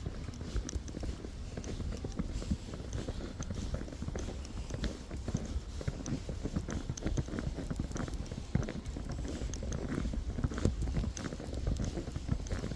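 Footsteps crunching in snow: a dense, irregular run of small crunches that does not pause.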